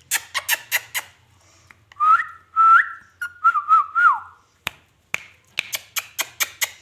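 Short series of whistled notes, some rising and one falling away, framed by quick runs of smacking kiss sounds before and after, from a pet ringneck parakeet being coaxed to mimic.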